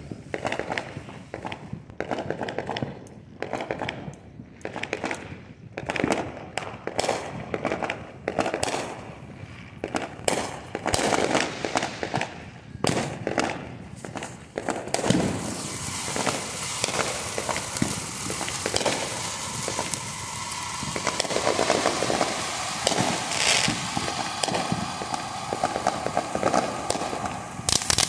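Phantom Fireworks Crown Jewel ground fountain: scattered sharp pops and knocks for the first half, then from about halfway a steady spraying hiss with crackling, which grows much louder near the end as the fountain reaches full spray.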